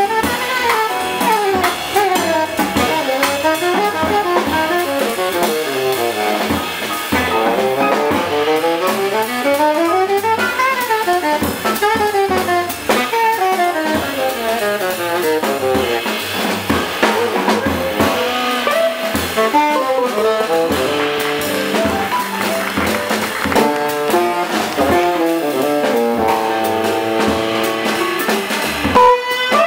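Jazz quintet playing: a saxophone solos in fast runs of notes up and down over a drum kit, upright bass, electric archtop guitar and piano. Near the end the line settles into short repeated notes.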